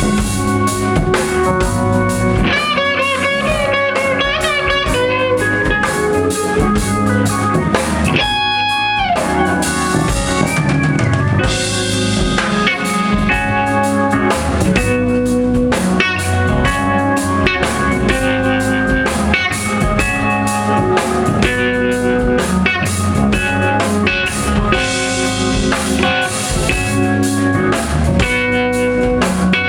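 Live rock band playing an instrumental passage: an electric guitar lead with bent, wavering notes and a long held note over a steady drum kit beat.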